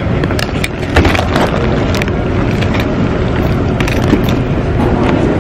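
Handling noise from a camera jostling inside a purse during walking: a loud, muffled rubbing rumble broken by irregular knocks and clicks.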